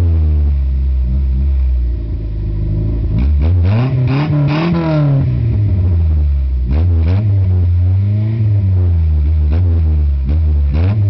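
VW Golf Mk3 1.8's four-cylinder petrol engine heard at the exhaust tip, idling with one long rev that rises and falls about four seconds in, then a few short throttle blips. The exhaust carries an aftermarket sport section in place of the stock part.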